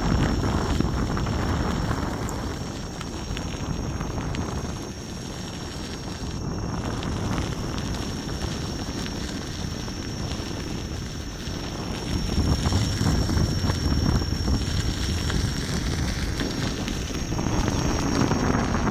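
Wind rushing over the microphone mixed with tyre rumble from a Gotway MSuper3 electric unicycle rolling at speed along a gravel path, swelling and easing in loudness, with a thin steady high whine throughout.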